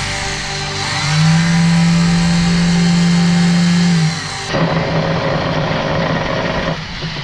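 A power tool motor running at speed with a strong steady hum, swelling about a second in; partway through it cuts suddenly to a second, slightly different stretch of machine running.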